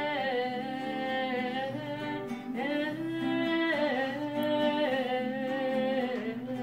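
A song in Galician: a voice drawing out long, wavering notes over acoustic guitar accompaniment, between sung lines.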